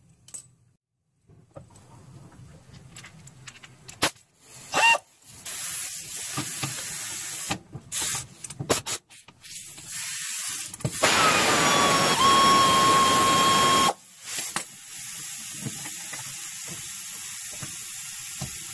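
Pneumatic air ratchet taking out a disc-brake caliper bolt, over a steady hiss of compressed air. Clicks and knocks of the tool being fitted come in the first half. About eleven seconds in, the ratchet motor runs hard for about three seconds with a whine that drops slightly and then holds one pitch.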